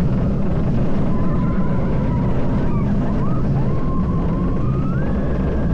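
Intamin single-rail roller coaster car running at speed along its steel rail: a heavy, steady rumble of wheels on track and rushing air, with a faint whining tone that glides upward in pitch in the second half.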